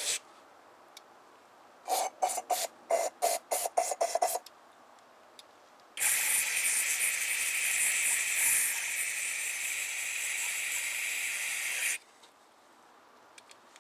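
Aerosol carburetor cleaner sprayed through its red extension straw into a Briggs & Stratton carburetor's passages: a quick run of about nine short spurts, then a steady hiss for about six seconds that cuts off sharply.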